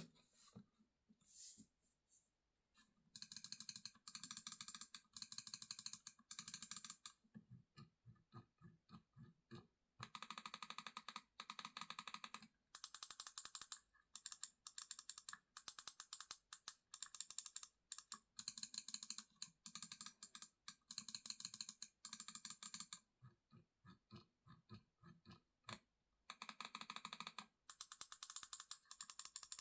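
GravaStar Mercury X AIR gaming mouse clicking: fast runs of rapid clicks, broken twice by stretches of slower, separate clicks.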